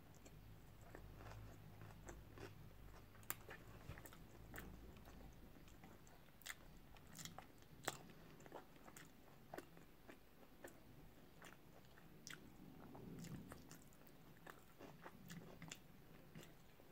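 Faint chewing of a mouthful of sushi with the mouth closed, with small sharp clicks now and then.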